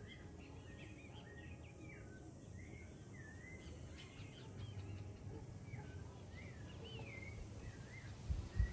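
Birds chirping outdoors with many short whistled notes that slide up and down, over a steady low rumble. There is a short low thump near the end.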